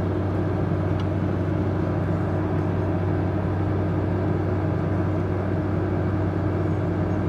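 Frigidaire 5000 BTU window air conditioner running steadily on cool: an even compressor hum under the fan's blowing, drawing about 19 to 20 amps at 12 volts from the solar generator.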